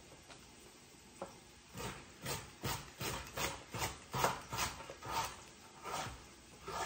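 Kitchen knife chopping carrots on a cutting board: a run of sharp, uneven knocks, about two or three a second, starting after about a second and a half.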